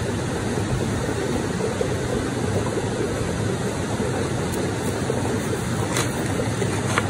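Wood campfire burning with a steady rushing roar and a couple of sharp crackling pops near the end.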